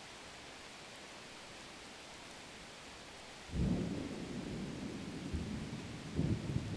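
Breaded cutlets shallow-frying in hot oil in a nonstick pan, with a faint steady hiss of sizzling. About halfway through, a sudden loud low rumble sets in and surges again near the end.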